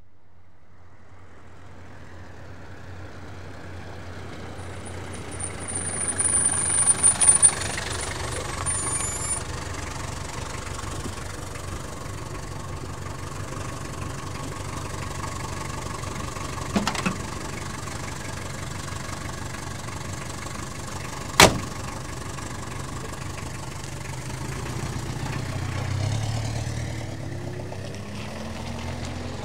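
A taxi's engine heard from outside, growing louder as the car pulls up, with a high squeal as it comes to a stop, then running steadily. A sharp click sounds about two-thirds of the way through, and near the end the engine's pitch rises as the car pulls away.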